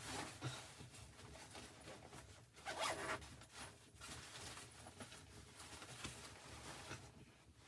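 Short rustling, scraping handling noises, loudest about three seconds in.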